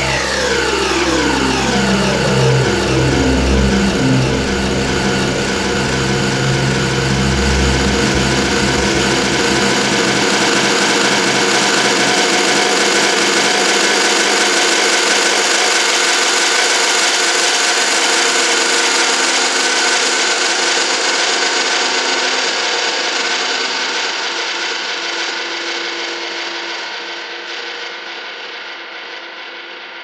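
Make Noise Eurorack modular synthesizer playing a dense, noisy drone made of many held tones, with several falling pitch sweeps in the first few seconds. The deep low end drops away about ten seconds in, and the drone slowly fades out near the end.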